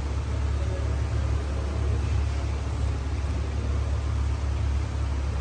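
Mitsubishi Pajero being driven: a steady low rumble of engine and road noise under an even hiss, with no rise or fall in revs.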